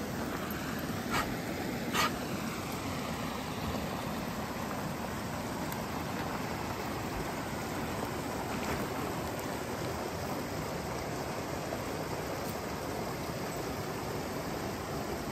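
Small rocky creek running, a steady rushing of water. Two short clicks stand out about one and two seconds in.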